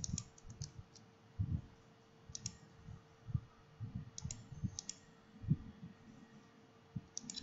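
Scattered quiet clicks at a computer, in small groups of two or three, with soft low thumps between them over a faint steady hum.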